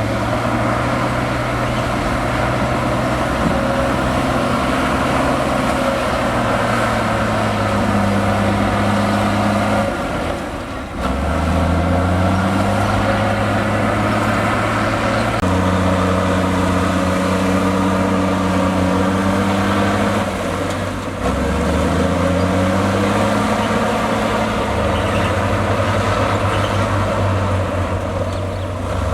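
Large diesel engine of heavy earthmoving equipment running steadily under load. Three times, about ten seconds in, twenty seconds in and near the end, it briefly drops in level and then revs back up with a rising pitch.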